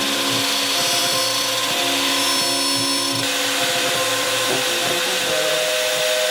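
Electric router in a router table running steadily while a hardwood strip is fed along the fence past the bit, cutting a groove.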